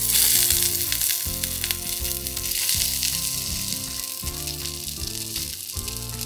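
A turmeric-coated piece of fish frying in hot oil in a miniature wok, a steady dense sizzle that starts loud right at the beginning and eases a little over the following seconds.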